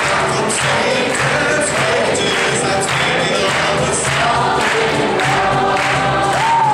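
School choir singing a gospel song, several voices together over a steady accompaniment.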